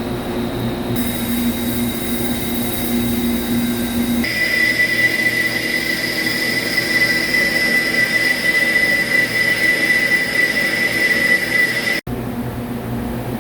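CNC machine cutting a GCD500 ductile cast iron tire mold segment: a steady machine hum, then from about four seconds in a steady high-pitched whine from the cut. The whine cuts off suddenly near the end, and the lower hum returns.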